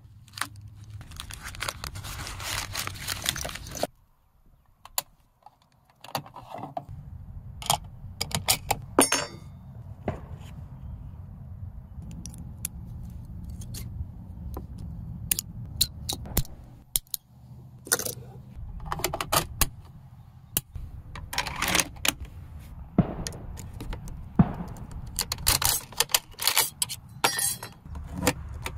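Hands unpacking and loading 7.62×54R steel-cased rifle cartridges: a folding knife cuts twine and paper wrapping rustles open, then many sharp metallic clicks and clinks as the cartridges are snapped into a steel stripper clip and the clip is set into an SVT-40's clip guide.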